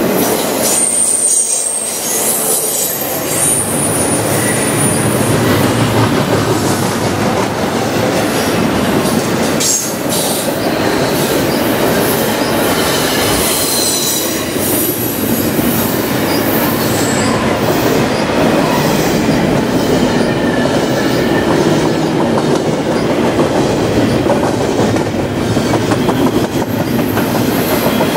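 Double-stack container cars of a freight train rolling past: a loud, steady rolling noise of steel wheels on rail, with thin high-pitched wheel squeals coming and going.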